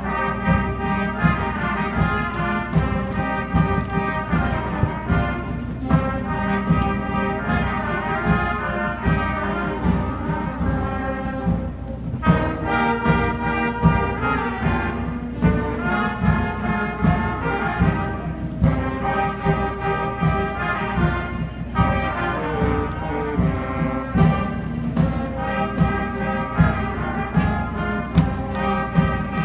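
Middle school concert band playing a piece: saxophones, clarinets and trumpets carry the melody over a steady percussion beat.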